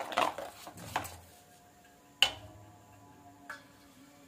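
Spiced cutlet batter being beaten by hand in a stainless steel bowl: a few quick wet strokes in the first second. Then two sharp knocks of the steel bowl, the louder one about two seconds in.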